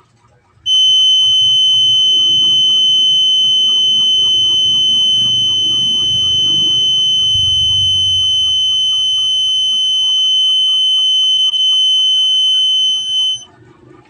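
Buzzer of a home-built smoke detector circuit sounding its alarm: one steady, high-pitched tone that starts about a second in and cuts off near the end.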